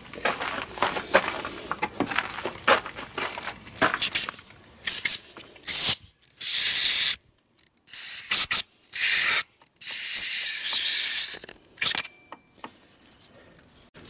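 Compressed-air blow gun blowing out the passages of a freshly cleaned carburetor body in a series of loud hissing blasts, a few short ones and then several lasting about a second. Small clicks and handling noises come before the first blast, about four seconds in.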